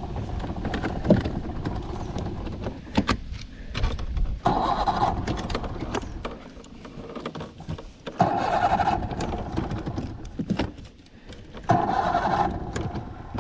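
A 27-year-old outboard motor is cranked by its electric starter in three separate bursts of about a second each, with pauses between them. The engine does not catch. Low rumble and knocks fill the first few seconds.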